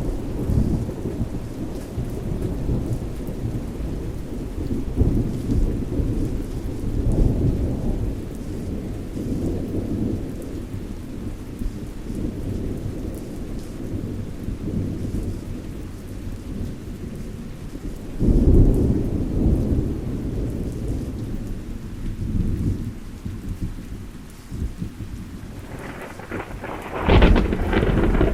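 Thunderstorm: steady rain under continuous rolling thunder. A loud deep rumble swells about two-thirds of the way in, and a sharper thunderclap cracks near the end.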